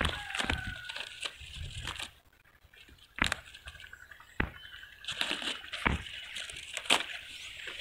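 Young coconut palm fronds rustling and crackling as a hand handles them, with several sharp clicks. The sound drops out briefly about two seconds in.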